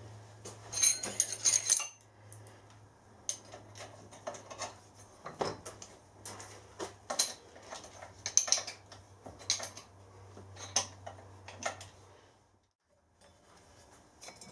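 Metal hand tools and machine parts clinking and knocking as they are handled at a milling machine's head, with a quick run of clinks about a second in. A low steady hum sits underneath and stops near the end.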